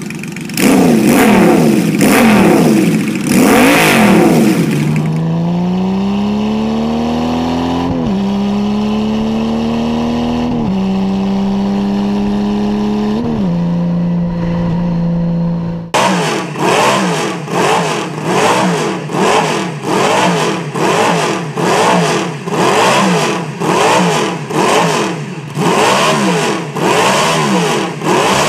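Honda F6C Valkyrie's 1,832 cc flat-six blipped several times while parked. Then it is ridden, climbing in pitch and dropping at three upshifts before settling into a steady cruise. About sixteen seconds in it cuts to the Moto Guzzi 500's 90° V8 racing engine, revved in sharp blips about once a second.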